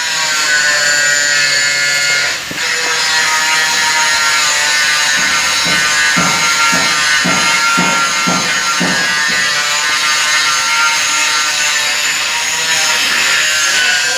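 A small electric power tool's motor running steadily with a high, buzzing whine. It dips briefly about two and a half seconds in, and a series of low knocks runs through the middle as it works on the seat-belt retractor's metal parts.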